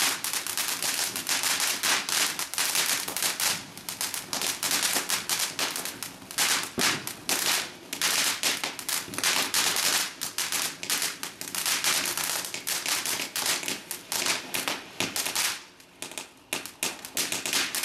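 Ground firework fountain spraying sparks with a dense, rapid crackle of many small pops a second. The crackle thins briefly about fifteen seconds in, then picks up again.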